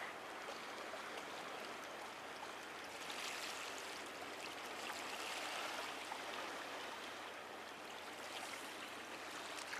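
Sea water washing against the harbour quay: a steady hiss that swells gently a couple of times.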